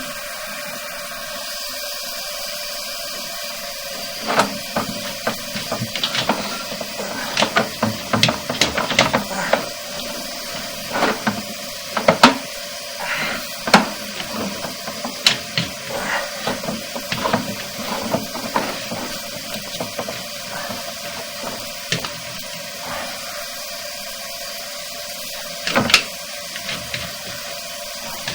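Irregular clicks and knocks over a steady hiss, most of them clustered between about four and nineteen seconds in, with a louder knock near the end.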